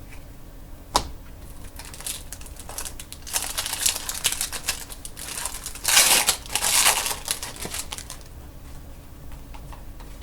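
Trading cards and their packaging handled at a table: a single sharp snap about a second in, then a run of quick clicking, slapping and crinkling that is loudest a little after the middle.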